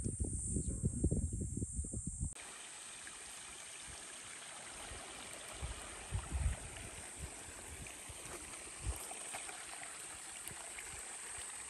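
Low rumbling buffeting on the microphone for about two seconds. Then a sudden change to a steady, even hiss of a small creek running over sand and rocks, with a few soft low thuds.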